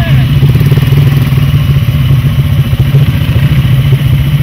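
Quad bike (ATV) engines running steadily at low revs, the nearest quad's engine loudest.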